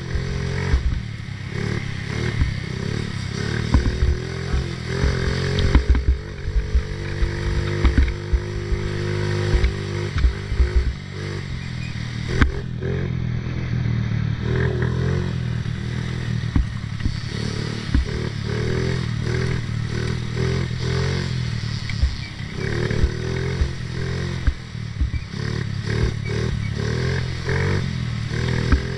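Small 50cc youth ATV engine running on board at changing revs, its pitch rising and falling as it rides along a bumpy dirt trail. Frequent short knocks and rattles come from the quad jolting over the ground.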